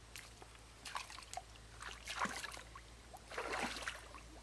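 Water sloshing and splashing in a few separate surges as someone wades through a shallow, muddy stream.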